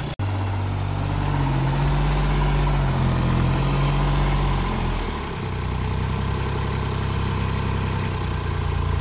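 Sonalika GardenTrac compact tractor's diesel engine running steadily at low revs. Its note shifts about five seconds in, and the sound drops out for an instant just after the start.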